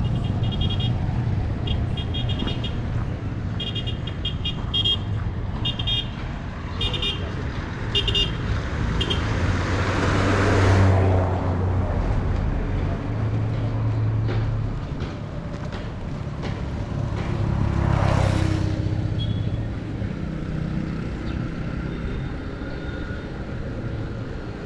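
Road traffic: engines running steadily, with two vehicles passing close by about ten and eighteen seconds in. In the first nine seconds or so, clusters of short high beeps, like a horn tooting.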